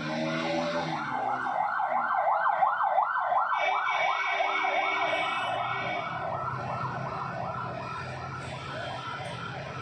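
Emergency vehicle siren warbling rapidly, about three rises and falls a second, swelling over the first few seconds and then slowly fading.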